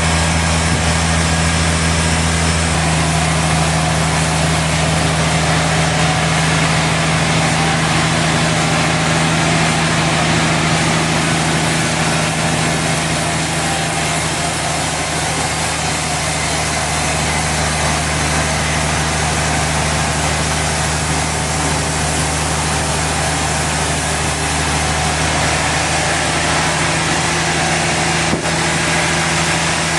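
Sawmill machinery running steadily: a constant low motor hum under a broad rushing noise, easing slightly in level midway, with one brief click near the end.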